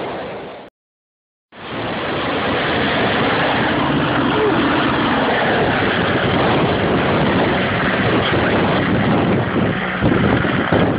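RAF Merlin helicopter in flight: a steady, dense rush of rotor and engine noise that resumes after a brief silent gap about a second in, with wind buffeting the microphone near the end.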